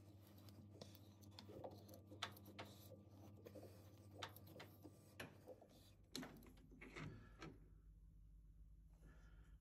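Near silence with faint, scattered ticks and clicks of a hand-turned tap wrench threading a hole in a stainless steel hammer head held in the lathe chuck. A few louder clicks come between about six and seven and a half seconds in, as the head is handled in the chuck.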